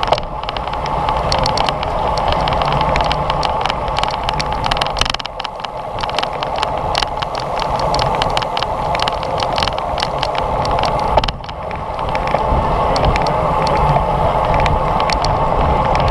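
Wind rushing over a bicycle-mounted GoPro's microphone at speed, with road rumble and frequent small clicks and knocks; the noise drops briefly twice, about five and eleven seconds in.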